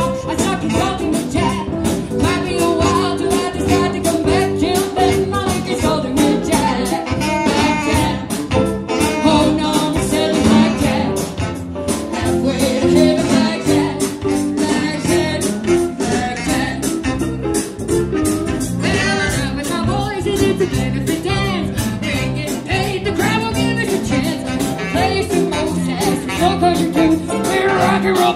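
A live band playing through a stage PA: saxophone, electric guitar, bass, keyboards, drum kit and hand percussion, with a woman singing lead. Steady, full-band playing with a regular drum beat.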